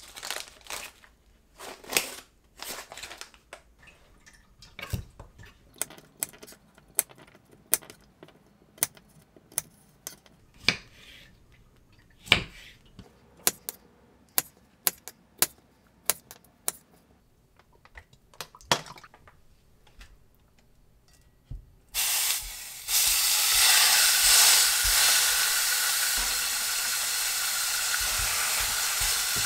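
A plastic vacuum-pack bag crinkling, then a kitchen knife chopping button mushrooms on a wooden cutting board in separate, spaced strokes. Near the end a bone-in shoulder rack goes into a hot frying pan and sizzles loudly and steadily.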